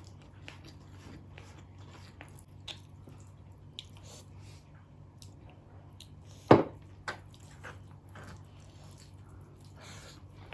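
A person chewing and eating close to the microphone: soft wet mouth sounds and small clicks over a low steady hum, with one sharp click about six and a half seconds in, the loudest sound.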